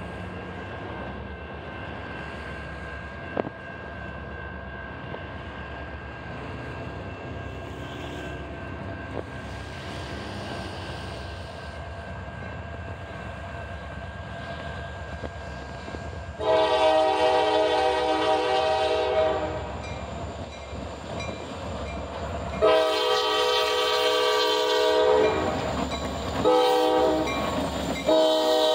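Diesel freight locomotives (EMD SD40-2s) rumbling closer, then the lead unit's air horn sounding long, long, short, long: the standard warning for a grade crossing. The horn is the loudest sound, and the final blast is still going at the end.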